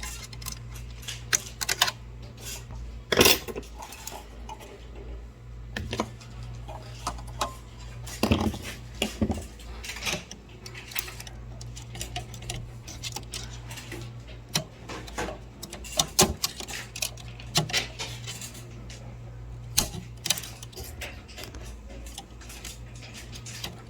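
Irregular small clicks, taps and scrapes of a metal tool and a tiny spring against the plastic blue printhead latch of a Memjet printer, as the spring is worked into its small hole, over a steady low hum.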